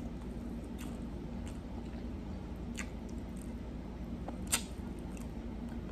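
Close-miked eating sounds as fried chicken coated in pink sauce is bitten and sucked: a few short, wet mouth clicks and smacks, the sharpest about four and a half seconds in, over a low steady hum.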